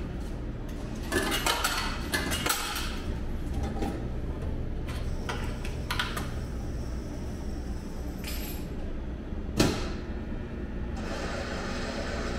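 Retro ramen vending machine working through its cooking cycle: a steady low hum with scattered mechanical clicks and knocks, the loudest a sharp knock near the ten-second mark. About eleven seconds in, a steady rushing noise starts.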